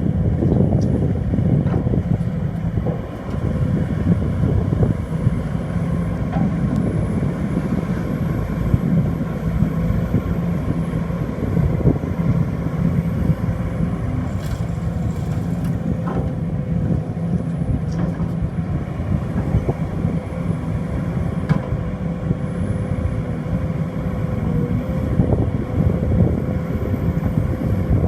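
Heavy diesel engines of a Sumitomo SH210F excavator and ten-wheel dump trucks running steadily under work, with a few short knocks.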